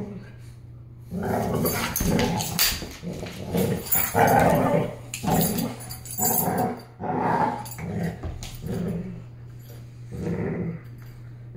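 Two puppies, a Caucasian shepherd and a boxer mix, play-fighting and growling in short repeated bursts, about a dozen of them, starting about a second in.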